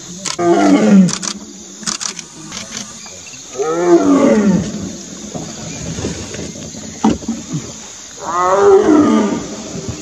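Tiger calling three times. Each call is a roar of about a second that rises and then falls in pitch.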